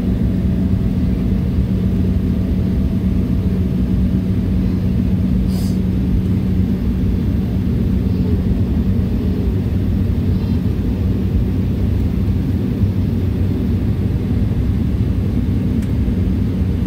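Cabin noise of a regional jet taxiing on the ground: a steady low rumble from the jet engines and airframe with a constant low hum. One brief click about five seconds in.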